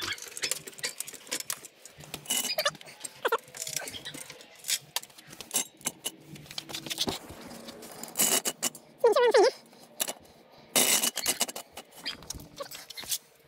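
Metal clanks, clicks and rattles of a floor jack and steel jack stands being positioned and adjusted under a car. There are two louder rattling clatters, about eight and eleven seconds in, and a short wavering squeak between them.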